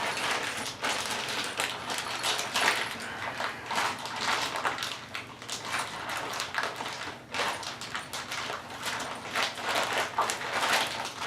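Packaging rustling and crinkling as a kennel hardware kit is unwrapped, with frequent small clicks and knocks of parts being handled.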